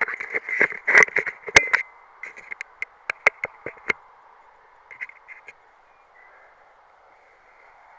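Handling noise from an action camera: a quick run of knocks, clicks and rubbing as it is held and moved, loudest in the first two seconds, a few more up to about four seconds and near five, then only a faint hiss.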